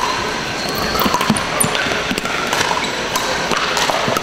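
Pickleball rally: paddles hitting the hard plastic ball in a string of sharp pops, with brief shoe squeaks on the hardwood court over the steady background noise of other games in a large hall.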